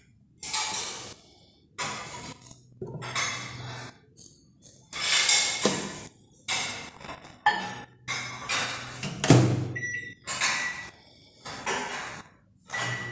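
Knocks and clinks of a glass bowl of plastisol being handled and set into a microwave oven, with the microwave door shut with a thunk a little past the middle. A few short beeps from the microwave's keypad follow.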